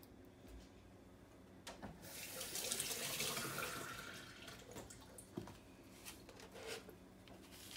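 Kitchen faucet running into a stainless steel sink for about three seconds, starting about two seconds in and tapering off, with a few light knocks before and after.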